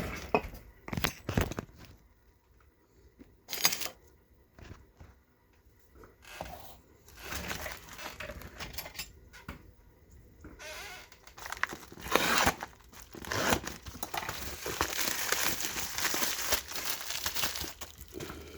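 A shipping package being opened by hand. First a few knocks and clicks of handling, then long stretches of tearing tape and crinkling packing material, loudest in the second half.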